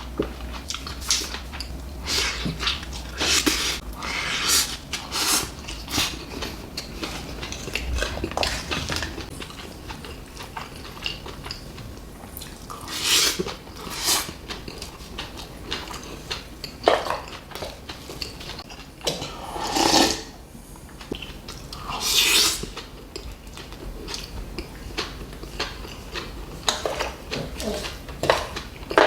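Close-up eating sounds: chewing and slurping food, with utensils clinking against dishes, in irregular short bursts.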